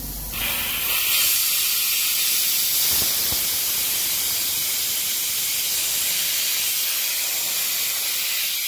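Compressed air blasting out of an opened drain-leg valve on a compressed-air system, a loud steady hiss that starts suddenly just after the start. It blows dry, with no water coming out, a sign that the aftercooler and dryer are removing the moisture.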